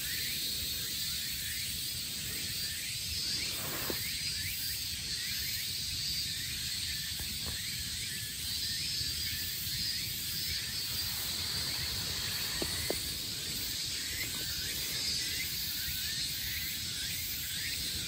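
Outdoor ambience of insects buzzing and chirping steadily: a high constant drone with short chirps repeating over it, on a low bed of background noise.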